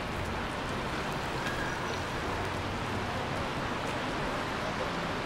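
Steady hiss of rain and traffic on wet streets, with no single sound standing out.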